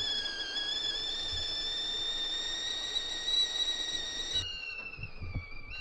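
Stovetop whistling kettle whistling at the boil: a steady piercing tone with overtones that creeps slightly upward in pitch. About three-quarters of the way through it suddenly weakens, and the remaining whistle sags in pitch and wavers.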